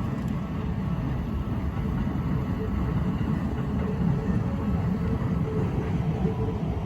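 Steady low rumble of a train running on the tracks.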